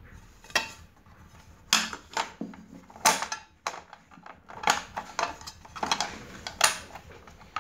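A sandwich maker's ribbed non-stick grill plate being set down over the heating coil and pressed into its plastic housing to lock in place: about a dozen irregular clicks and knocks of plate against housing.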